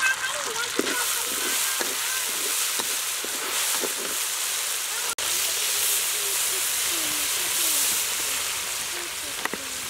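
Chopped garlic and red sauce sizzling in a hot steel wok, with a metal spatula stirring and scraping against the pan. The sizzle cuts out for an instant about halfway.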